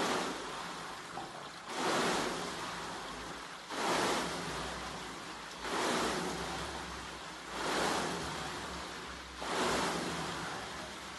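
Water rowing machine in steady use: the paddles churn the water in its tank with a rushing swoosh on each pull, one stroke about every two seconds, six in all.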